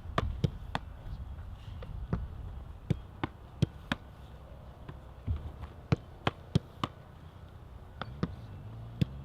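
Footballs being kicked in a passing drill: sharp, irregular strikes, at times several a second, over a low rumble of wind on the microphone.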